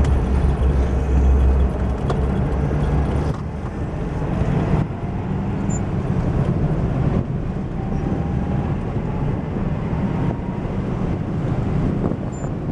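Car driving at speed, heard from inside the cabin: steady engine and road noise, with a deep rumble that drops away about three seconds in.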